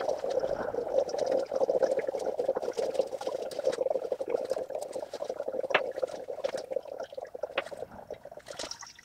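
Used engine oil pouring in a stream from a Toyota Prius C's oil pan drain hole into a drain pan, with a steady splashing that weakens toward the end as the pan runs nearly empty.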